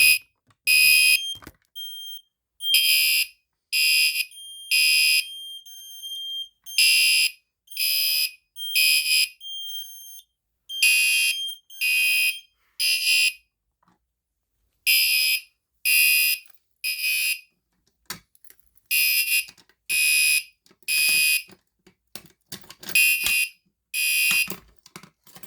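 Fire alarm system's alarms sounding in the temporal-three evacuation pattern: three loud, high-pitched half-second pulses, a pause, then three more, repeating about every four seconds, with a thinner steady high tone heard between some of the pulses.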